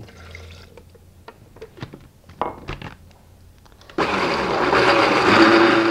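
Countertop blender switched on suddenly about four seconds in, its motor running loud and steady as it blends a thick mixture of goat cheese and melted gelatin. Before that there are a few light handling knocks.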